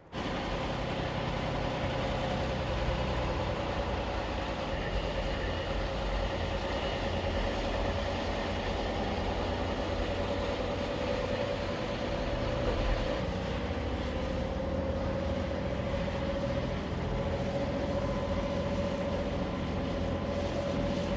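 Freightliner Cascadia semi-truck running on the road: a steady engine and road rumble with a steady whine that drifts slightly in pitch.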